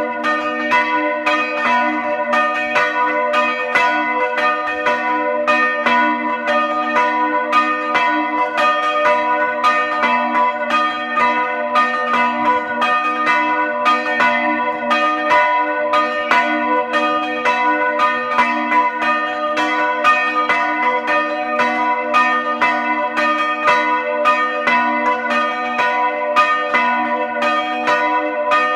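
Church bells rung by hand with ropes, heard close up from inside the bell frame: rapid strokes following one another without a break, over a steady ringing hum that never dies away.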